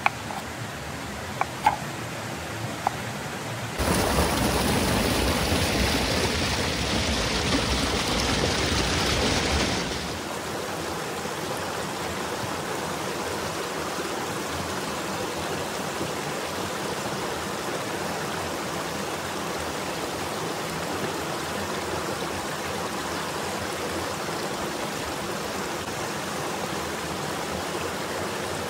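Steady rush of a flowing river. In the first few seconds there are a few sharp knife chops on a wooden cutting board. From about four to ten seconds in, a louder rushing noise starts and stops abruptly.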